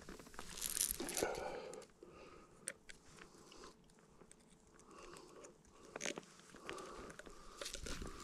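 Rustling in dry grass and scattered small clicks as hands handle a catfish and work the hook out of its mouth.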